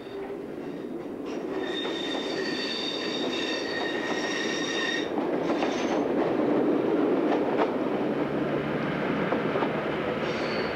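A first-generation diesel multiple unit passing close beneath and running away down a single track. About a second in, its wheels set up a high, steady squeal made of several tones, which stops about five seconds in. The rumble and clatter of wheels on rail then carries on.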